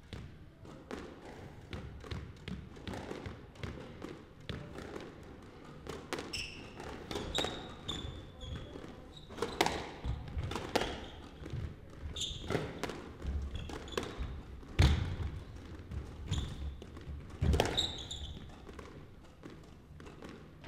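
Squash rally: the ball smacking off rackets and walls in an irregular exchange, with sneakers squeaking on the hardwood floor and footsteps thudding. The play dies down near the end.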